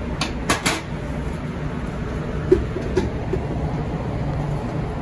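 Steady low machine hum, with brief rustling scrapes about half a second in as chopped cilantro is pushed from a dish into a blender jar, then a couple of light knocks as the jar is handled, around two and a half to three seconds in.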